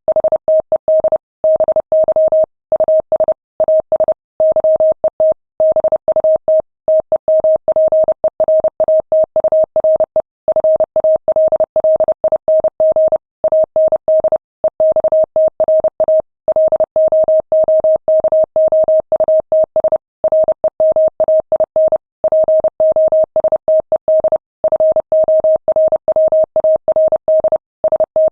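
Morse code sent at 30 words per minute: a single steady mid-pitched tone keyed on and off in rapid dots and dashes, with short pauses between words.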